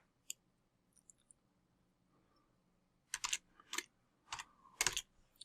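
Computer keyboard being typed on: a single key click, then a short run of about six keystrokes in the second half.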